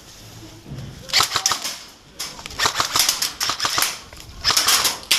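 Airsoft guns firing in three rapid bursts of sharp clicking shots: about a second in, again from two to four seconds, and once more near the end.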